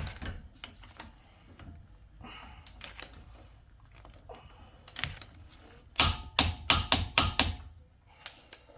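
Click-type torque wrench on the bottom brake caliper bolt: a lone click about five seconds in, then a quick run of about six sharp metallic clicks.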